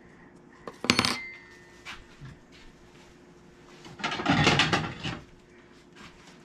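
A metal fork is set down on the countertop with a sharp clatter and a brief ring about a second in. Around four seconds in comes a longer spell of kitchen handling noise, under a faint steady hum.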